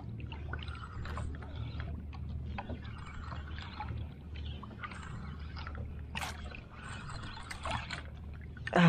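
Water lapping against the hull of a small outrigger boat over a steady low rumble, with scattered light clicks and knocks. A short loud sound comes at the very end.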